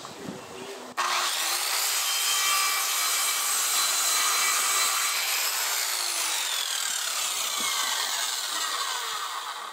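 Handheld circular saw starting abruptly about a second in and crosscutting a wooden board, then its blade winding down with a falling whine near the end.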